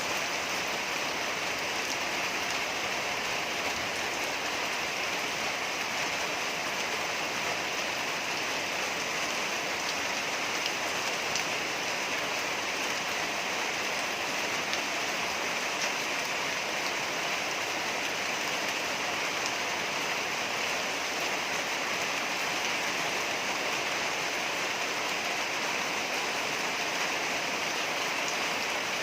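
Steady rain: an even, unbroken rushing hiss of falling water with a few faint drop ticks, holding at the same level throughout.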